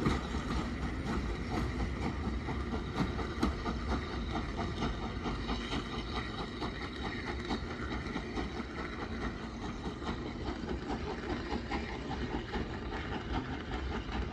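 Maunsell S15 two-cylinder 4-6-0 steam locomotive working away with its train, a steady rhythmic exhaust beat over the rumble of the coaches, growing fainter as it goes.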